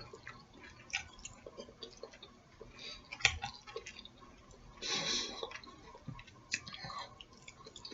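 A person chewing food close to the microphone, with soft wet mouth clicks and smacks, and a short, noisier stretch about five seconds in.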